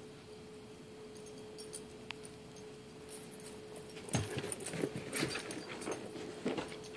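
Footsteps crunching in fresh snow, irregular and close, starting about four seconds in, over a faint steady hum.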